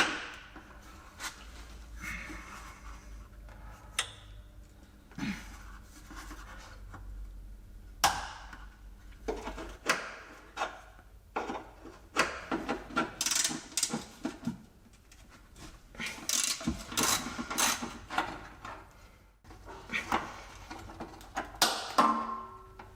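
Hand-tool work on a car's rear underbody: scattered metallic clicks and knocks as a wrench works a brake line fitting, with bursts of scraping and rubbing, busiest around the middle of the stretch.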